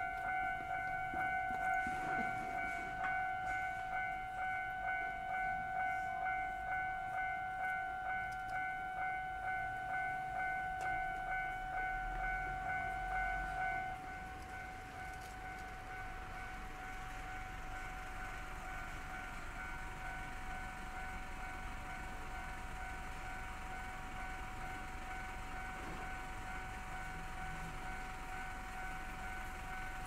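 Japanese railway level-crossing warning bell ringing in an even, repeating rhythm. About 14 seconds in it becomes quieter and changes tone, and it keeps ringing.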